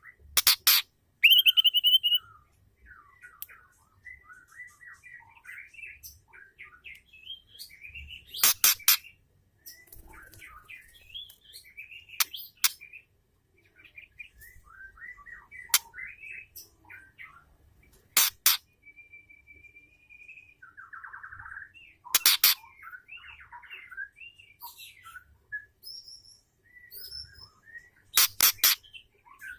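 Female white-rumped shama calling: soft chirps and short warbled phrases, broken every few seconds by loud, sharp calls.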